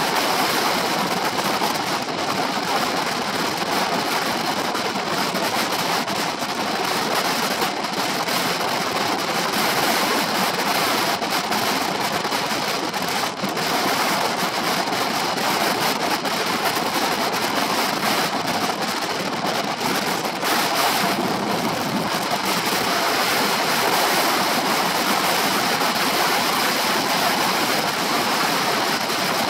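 Steady wind rushing over the microphone of a shoulder-mounted camera on a moving Honda PCX 125 scooter, with no clear engine note standing out.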